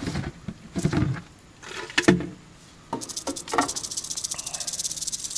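A rattlesnake caught in chicken wire rattling its tail: a fast, steady, high buzz that starts about three seconds in and keeps going. This is the defensive warning rattle of a trapped snake. Before it come a few short rustles and knocks.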